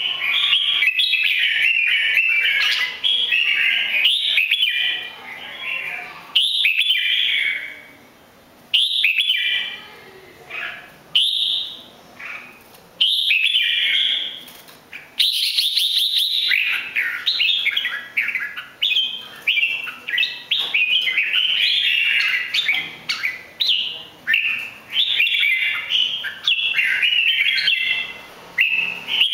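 Caged red-whiskered bulbul singing: quick, bright warbled song phrases, separated by short pauses at first, then running almost without a break from about halfway through.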